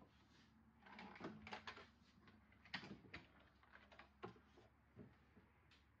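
Faint, scattered clicks and knocks, a dozen or so at uneven intervals, the loudest about two-thirds of a second before the middle, over a low steady hum.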